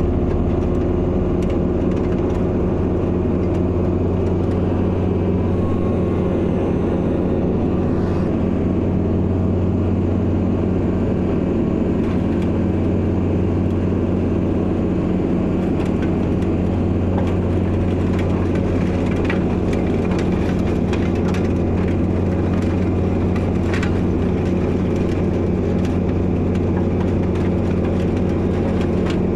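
Kubota L4701 tractor's diesel engine running steadily, driving a tractor-mounted snowblower, with scattered light clicks over the drone.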